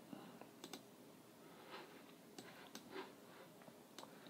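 Near silence broken by a handful of faint, scattered clicks from a computer mouse and keyboard.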